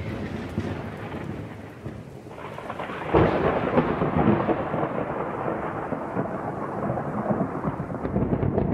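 Thunderstorm sound effect: steady rain with rumbling thunder, which swells again suddenly about three seconds in.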